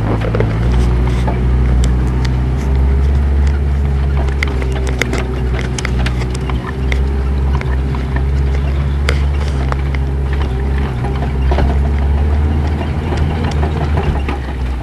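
A vehicle driving over rough off-road ground: a steady low engine drone with a faint held whine, and scattered knocks and rattles throughout.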